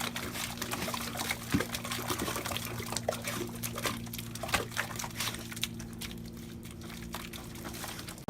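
Water splashing and trickling, with many small irregular clicks over a steady low hum.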